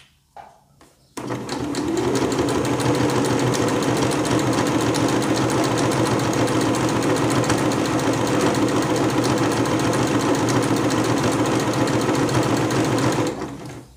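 Elgin electric sewing machine stitching steadily at an even, fast rhythm, edge-stitching a fabric border; it starts about a second in after a couple of faint clicks and stops shortly before the end.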